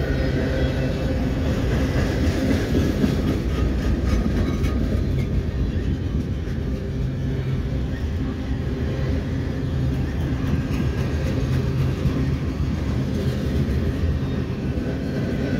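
CSX mixed freight cars (covered hoppers, loaded centerbeam flatcars, tank cars) rolling past close by: a steady rumble of steel wheels on rail.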